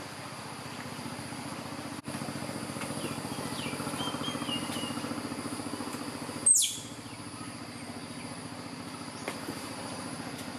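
Outdoor ambience: an engine runs steadily in the background with a fast low pulse, under a thin high insect drone and a few faint bird chirps. About six and a half seconds in, one loud, sharp call sweeps quickly down in pitch.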